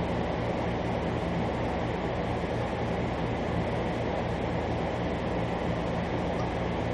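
Steady background drone with a low hum underneath, even throughout, with no distinct clicks or knocks.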